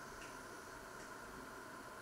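Faint steady hiss of a quiet kitchen, with a couple of soft ticks about a second apart.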